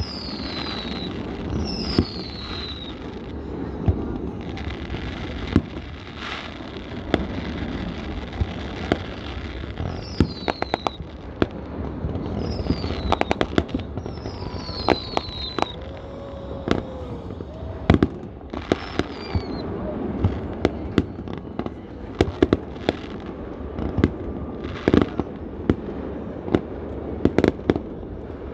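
A fireworks display: a rapid, irregular run of sharp bangs and crackling bursts, with several short high whistles falling in pitch.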